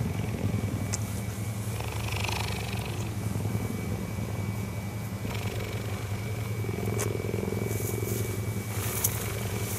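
Cheetah purring steadily while grooming, a continuous deep rumble with a rapid fine pulse, and a few soft clicks over it.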